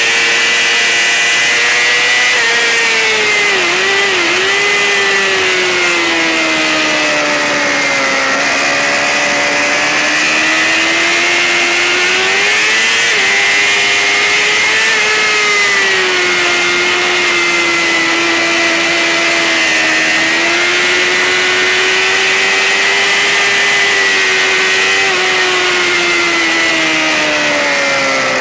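Racing sportbike engine running hard at high revs, its pitch sliding down and back up slowly with the throttle, over a steady hiss.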